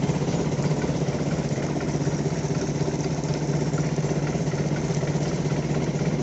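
A small engine running steadily at constant speed, with a fast, even pulsing.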